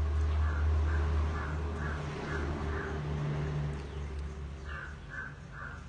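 A bird calling in short repeated calls about two a second: five in a row, a pause, then three more near the end, over a steady low rumble.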